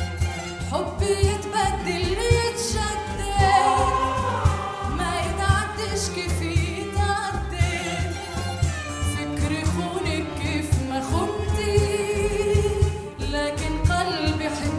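A woman sings an Arabic song live, with long ornamented phrases, accompanied by oud and cello over a steady low beat.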